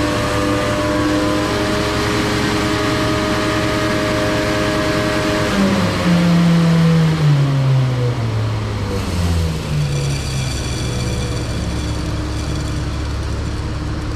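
Grain vacuum running as its intake tube works in soybeans, a steady rushing drone with held tones. From about six to nine seconds in, a louder tone drops steadily in pitch, then the steady drone carries on.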